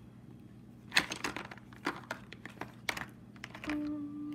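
Plastic lip gloss and lipstick tubes clicking and knocking against each other and a clear plastic drawer as a hand sorts through them, with a handful of separate sharp clicks, the loudest about a second in. A short steady hum follows near the end.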